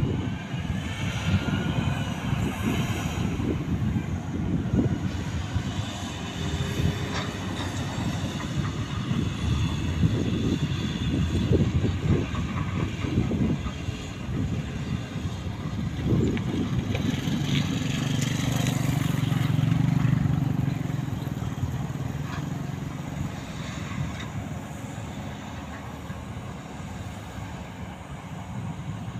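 Diesel dump trucks and an excavator running, with scattered knocks and thuds from the machinery. About eighteen seconds in, one engine's steady drone grows louder, then fades.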